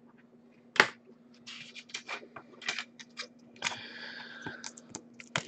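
Hands handling trading cards on a glass tabletop: a sharp tap about a second in, then a run of clicks, scrapes and rustles. A faint steady low hum runs underneath.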